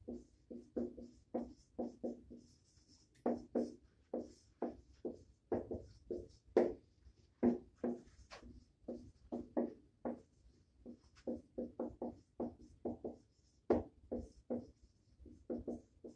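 Dry-erase marker writing on a whiteboard: a quick, uneven run of short strokes as words are written out.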